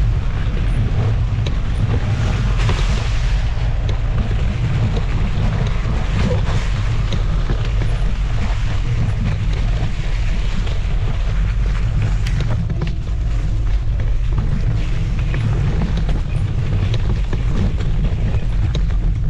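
Wind buffeting the microphone over the rumble and rattle of an MS Energy X10 electric scooter riding offroad on a forest trail, with scattered knocks from the rough ground.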